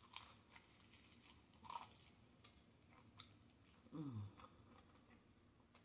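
Faint, close-up chewing of a crispy chicken taco: soft crunches and wet mouth clicks. About four seconds in comes a short, falling "mm" of enjoyment.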